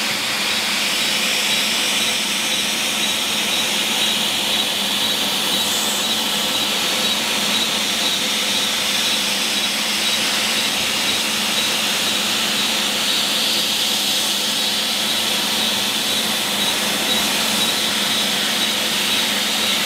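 Laser hair removal machine running during treatment: a steady, even airy hiss with a faint steady hum beneath it.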